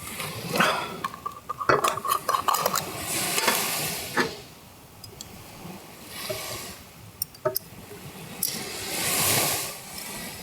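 Spoon and dishes clinking and scraping while shuto (salted fish innards) is stirred into cream cheese. There is a dense run of clinks and scrapes over the first few seconds, then a few sharp clicks later on.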